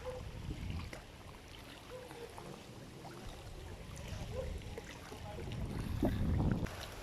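Wind buffeting the microphone outdoors as a low rumble, swelling louder about six seconds in.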